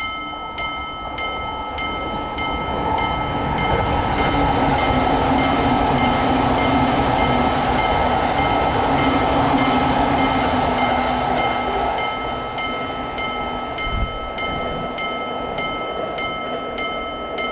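Japanese level-crossing warning bell ringing steadily, about two strikes a second, while a train passes through: its rushing noise swells, holds for several seconds and fades away.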